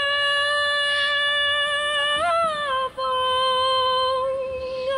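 A woman sings a Hakka high-pitched (gaoqiang) mountain song, holding long high notes. The first note lasts about two and a half seconds and rises briefly near its end. After a quick breath just before the three-second mark, she holds a slightly lower note to the end.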